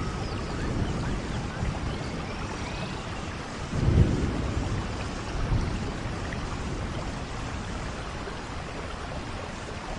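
Steady noisy ambience like rain, with a low rumble about four seconds in and a smaller one shortly after.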